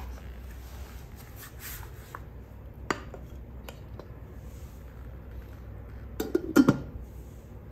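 Carote die-cast nonstick saucepan and its glass lid being handled, with a few scattered light knocks, then a quick cluster of clinks as the glass lid is set onto the pot rim about six and a half seconds in, the loudest sound.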